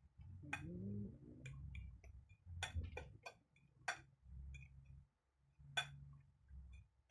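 Metal fork clinking against a ceramic plate while mashing ripe banana: about ten sharp, irregular clicks.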